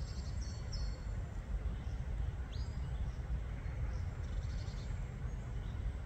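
Steady low rumble, with faint high bird chirps and short calls several times over it.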